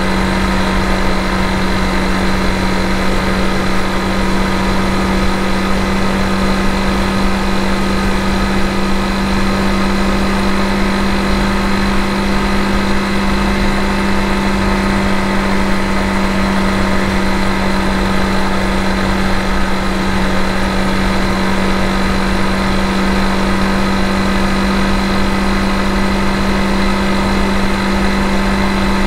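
Honda CRF250 Rally's single-cylinder engine running at a steady highway cruising speed, its pitch holding constant, under a steady rush of wind noise.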